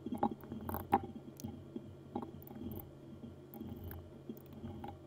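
Light, scattered clicks and knocks from hands handling a graphics card and its metal backplate as the backplate comes off.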